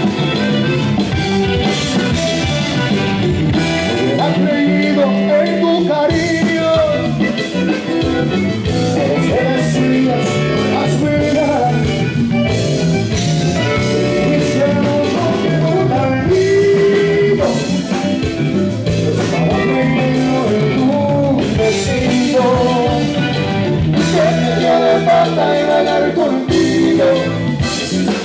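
A live Tejano band playing, with button accordion, electric bass and guitar, and drum kit, and a man singing over the band.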